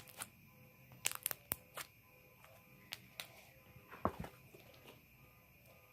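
Cloud slime being stretched and pulled apart by hand, giving faint scattered clicks and small crackles.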